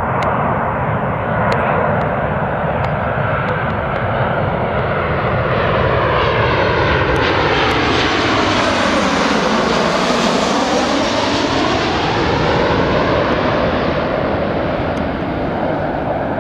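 Boeing 737 jetliner on final approach passing low overhead with its gear down. The jet engine noise is loudest in the middle as it goes over, with a whooshing sweep that falls in pitch and then rises again as it passes, before trailing away toward the runway.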